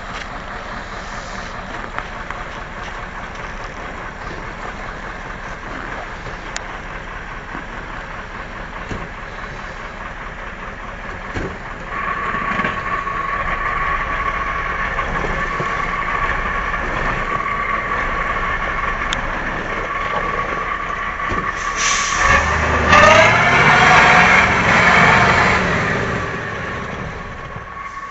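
Off-road truck engine running under load, with a steady whine setting in about halfway through. Near the end the engine revs hard, rising then falling in pitch, before settling back.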